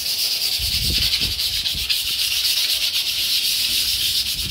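Sandpaper rubbing steadily over the steel sheet of a new gate, taking off small spots of surface rust before painting.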